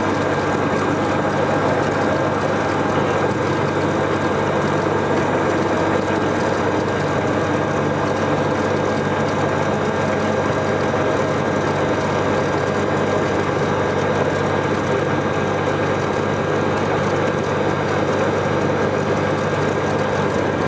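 Cessna 206's six-cylinder piston engine and propeller running steadily as the plane taxis along a rough dirt strip, heard from inside the cabin as an even drone.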